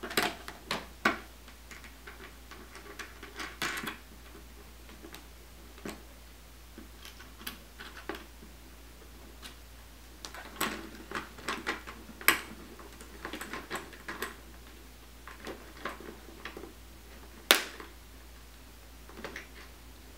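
Irregular clicks, knocks and rattles of plastic panels and small bolts being handled as a hinge is wiggled onto bolts, with a few sharper knocks, the loudest about 17 seconds in.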